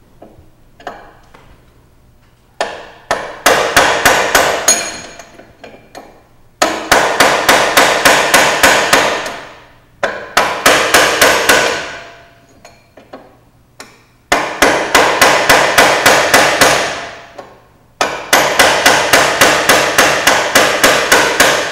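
Hammer striking a steel drift against the spring preload adjuster ring of a sport bike's rear shock, in five runs of quick taps of about five a second with short pauses between. The ring is being knocked round a little at a time to back off the spring preload by about one and a half turns.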